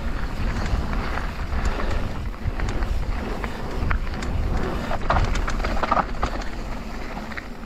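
Mountain bike rolling fast down a loose dirt-and-gravel trail: tyres crunching over small stones and the bike rattling, with wind rushing on the microphone. A few sharper rattles stand out about five to six seconds in.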